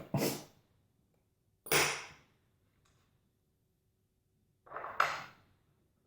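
Three short knocks and scrapes of metal lock parts and tools being handled as a mortise lock cylinder is taken apart.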